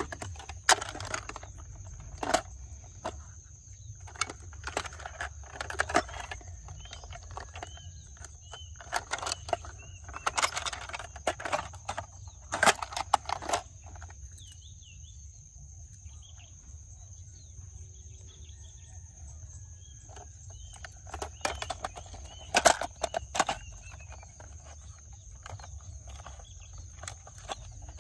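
Plastic toy cars clattering as they are handled: irregular clusters of sharp clicks and knocks, with a quieter stretch in the middle. A steady high whine and faint bird chirps run underneath.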